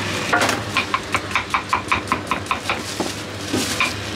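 Crinkle-cut knife chopping small green fruits on a wooden chopping board, a rapid even run of knocks about five a second. After a short pause there are two more cuts near the end.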